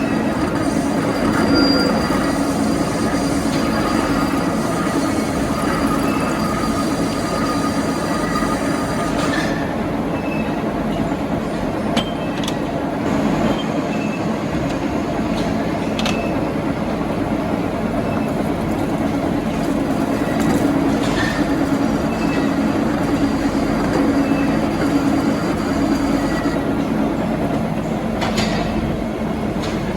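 Metal lathe running steadily: a continuous machine hum, with a thin high whine during the first third and again near the end, and a few sharp clicks.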